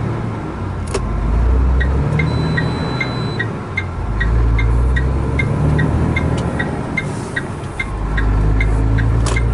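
Truck's diesel engine heard from inside the cab, pulling away with the revs rising and falling in waves, while the turn-signal indicator ticks steadily about three times a second from about two seconds in.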